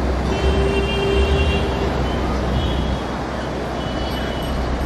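Steady outdoor rumble of traffic noise with heavy low wind rumble on the microphone, a low hum held for about a second and a half near the start, and a few faint high whistling tones.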